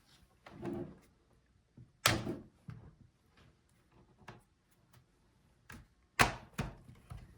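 Plastic clips of a laptop's bottom case snapping loose as a plastic pry tool separates it from the palmrest: a series of sharp clicks and plastic clacks, the loudest about two seconds in and another near the end.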